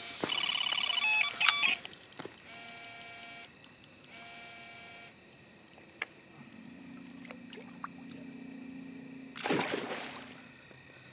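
Electronic carp bite alarm sounding a run: a fast stream of high beeps for the first couple of seconds, then two stretches of steadier, lower alarm tone. A brief rush of noise comes near the end.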